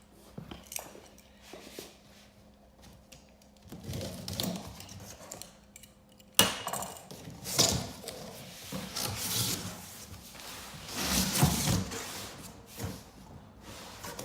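Objects being handled and moved about: scattered knocks, rubbing and light clatter. A sharp knock comes about six seconds in, and busier rustling and clattering follow.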